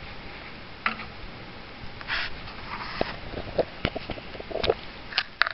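A raccoon sniffing close up, in short breathy puffs, among scattered light clicks and taps as it moves about.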